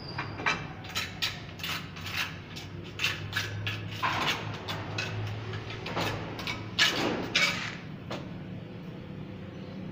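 A steel trowel scraping and tapping on a granite tile, spreading or scraping off mortar. It makes a run of sharp clicks and short scrapes, with longer scrapes about four and seven seconds in.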